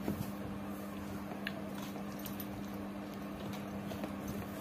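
A hand mixing rice and dal on a steel plate, with a few faint, light clicks and clinks, over a steady low hum.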